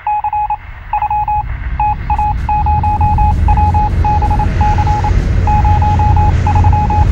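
A single high beep tone keyed on and off in short and long pulses, like Morse code, over the low rumble of a 1969 Ford Bronco's engine heard from inside the cab. The rumble grows louder over the first few seconds.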